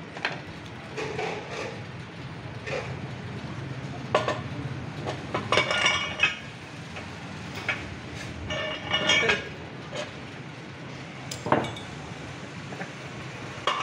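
Steel parts of a tractor clutch pressure-plate assembly and a screw-type clutch compressor tool clinking and clanking as they are handled and fitted together. The metal-on-metal knocks come in several short bunches with a ringing tone, over a low steady hum.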